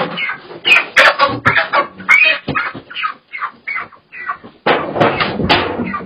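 Chickens squawking in a rapid flurry of short cries, with a few sharp knocks among them.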